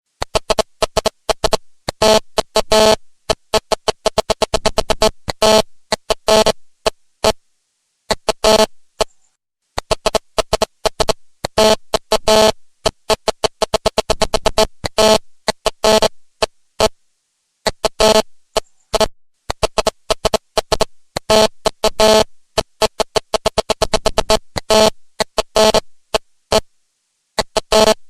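Fax machine printing: its paper-feed motor buzzes at one steady pitch in rapid stuttering pulses as it advances the page line by line. Brief pauses come about every few seconds.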